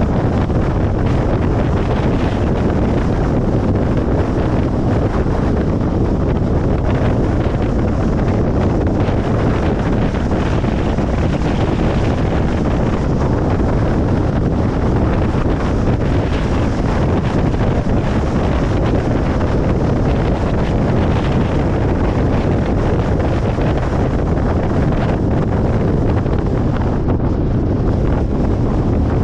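Steady road noise of a car driving at motorway speed: a constant low rumble of tyres and wind.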